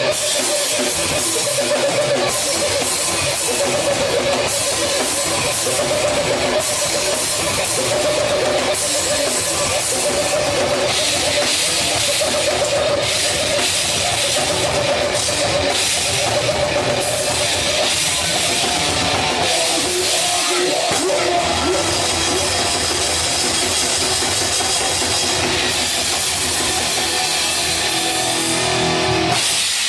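A rock band playing loud, heavy rock live: drum kit and electric guitar, with a strong held guitar note.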